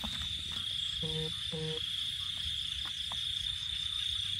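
Steady, high-pitched chirring of crickets, with two short frog croaks about half a second apart roughly a second in.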